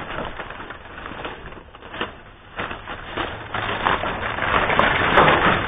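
Plastic bags and packaging rustling and crinkling as they are rummaged through by hand, a dense crackle of small clicks that grows louder over the last two seconds.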